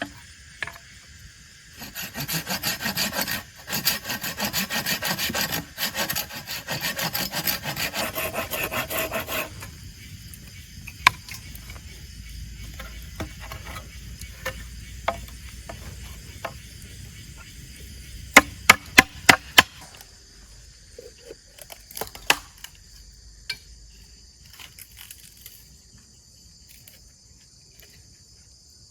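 Wood being sawn or rasped by hand, with rapid strokes for about seven seconds broken by two short pauses. About two-thirds of the way in comes a quick run of sharp knocks. Insects chirr steadily throughout.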